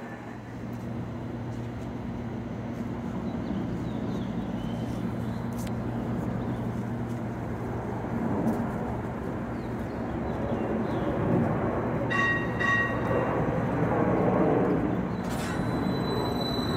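Inekon 121 Trio streetcar standing at a platform: a steady low electrical hum over a rumble that grows gradually louder. A short high tone sounds about twelve seconds in.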